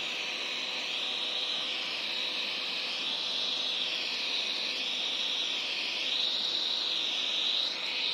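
Alfawise V10 Max robot vacuum cleaning medium-pile carpet: a steady suction-fan rush whose high whine drifts up and down every couple of seconds, over a faint low hum.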